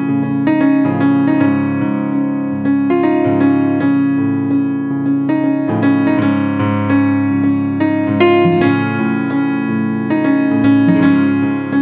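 Background piano music: an electric-piano tune with steady note changes and a sustained low accompaniment.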